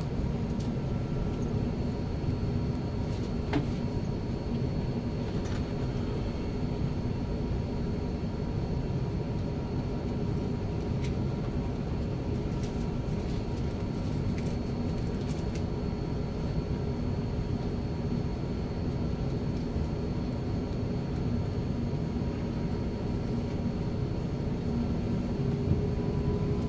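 Steady cabin drone of an Airbus A380 taxiing, heard from the upper deck: a low rumble with a few steady whining tones from its Rolls-Royce Trent 900 engines and occasional faint light rattles. Near the end a whine starts to rise in pitch and the sound gets a little louder as the engines begin to spool up for take-off.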